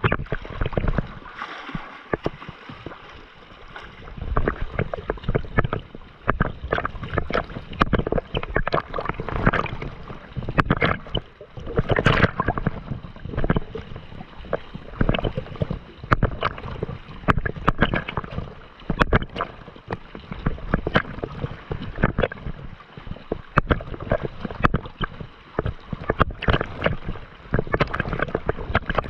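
Sea water splashing and sloshing right at a microphone riding on the surface, a continuous irregular run of splashes from chop and swimmers' arm strokes.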